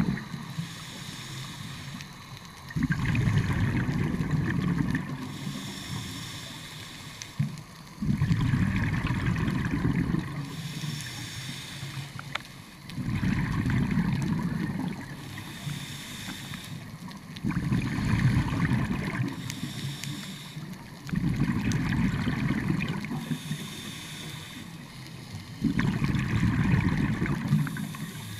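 Scuba diver breathing through a regulator underwater: a short hiss on each inhale, then a long bubbling rush of exhaled air, repeating about every four to five seconds.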